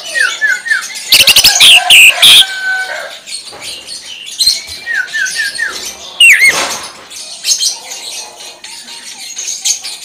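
Caged male green leafbird (cucak ijo) singing in loud bursts: quick falling runs of three or four notes, a very loud volley of sharp calls from about one to two and a half seconds in, and a sharp swooping note a little past the middle.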